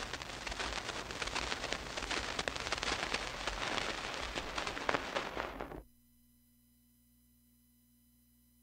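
Crackle and hiss of an old 1940s radio broadcast recording, running for about six seconds and then cutting off suddenly, leaving only a faint hum.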